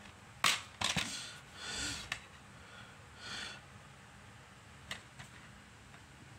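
Plastic DVD case snapping open: a sharp click about half a second in and a second click just after, then short scraping and rustling as the case is handled, with a few light ticks near the end.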